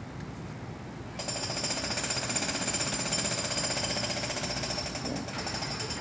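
Rapid mechanical hammering from a power tool, with a high-pitched ringing, starts about a second in and dies away near the end.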